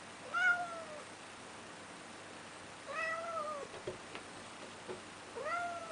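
Black domestic cat meowing three times at a closed door, about two and a half seconds apart. Each meow rises and then falls in pitch. It is asking to be let outside.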